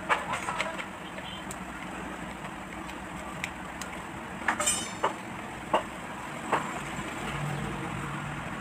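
Crinkling of a foil spice packet with a few light clicks and taps as ground masala is poured from it into a small plastic jar, over a steady background hiss.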